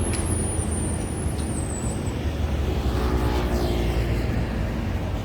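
Steady low engine rumble, with something passing close by about three seconds in.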